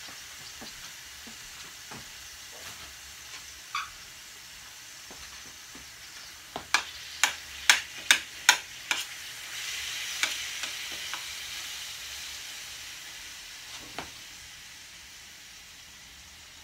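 Ground turkey sizzling in a frying pan over a gas flame while it is stirred. Between about six and nine seconds in there is a quick run of about seven sharp clicks of the utensil knocking against the pan, and the sizzle grows louder just after.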